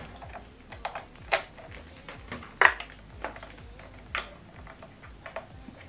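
Scattered plastic clicks and knocks from handling a soundbar section and pushing a cable plug into its socket; the sharpest knock comes a little under three seconds in.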